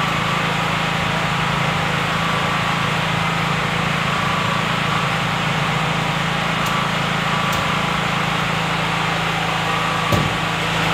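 A steady machine hum, loud and unchanging, with one brief thump near the end.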